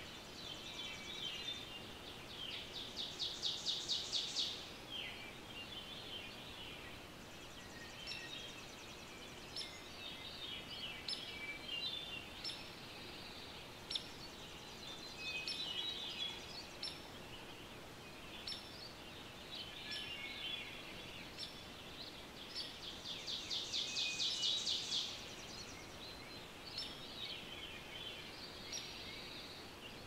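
Songbirds singing in a morning chorus over a steady outdoor hiss. Twice, a bird's rapid dry trill of fast repeated notes stands out as the loudest sound, lasting about two seconds each time. A faint high tick repeats about once a second through most of it.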